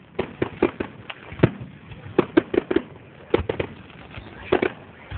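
Aerial fireworks bursting in a quick, irregular run of sharp bangs and pops, some coming in tight clusters.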